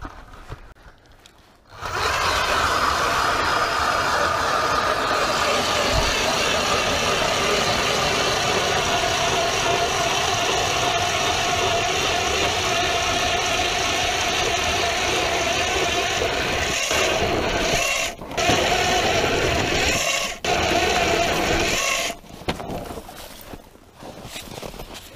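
ION battery-powered electric ice auger drilling through lake ice: a steady motor whine with the churn of the blade cutting. It starts about two seconds in, cuts out briefly twice near the end, and then stops.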